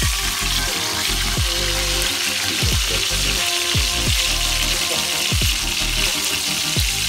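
A whole grouper (lapu-lapu) frying in hot oil in a wok, a steady sizzle. Background music plays over it, with held low notes and a falling bass sweep about every second or so.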